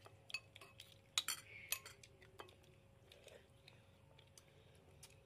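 Metal spoons clinking against ceramic bowls and plates during a meal: a scatter of sharp clinks, the loudest just over a second in, fewer after about three seconds.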